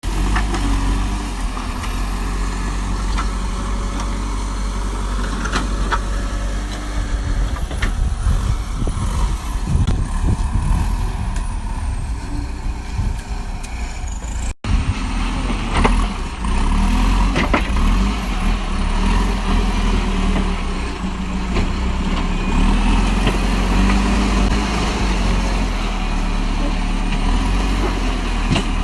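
Backhoe's diesel engine running steadily under work, with scattered clanks and knocks.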